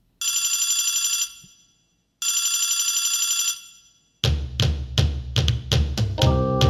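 A telephone bell rings twice, each ring about a second long with a gap between, then music with a drum kit comes in about four seconds in.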